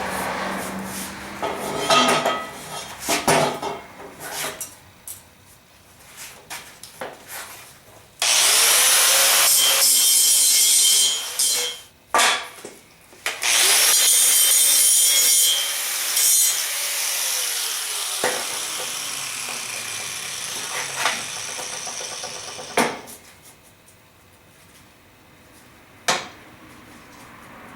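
Electric welder's arc hissing and crackling in two sustained runs, about three and a half and five seconds long, as nuts are welded onto bolts of a steel frame. Scattered sharp knocks of handling come before and after the runs.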